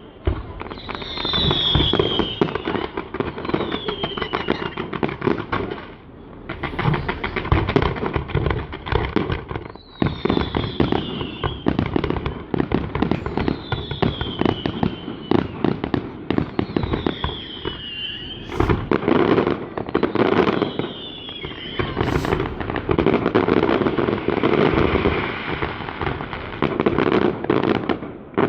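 Aerial fireworks display: a dense, continuous run of bangs and crackling pops, with short whistles falling in pitch repeating every couple of seconds. Two sharper cracks stand out at about 18 and 22 seconds in.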